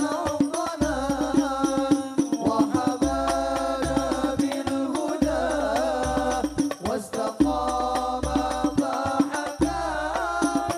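Hadroh ensemble performing a sholawat: an amplified male voice sings a melismatic devotional melody over a dense, steady pattern of hand-drum strokes with deep bass-drum beats.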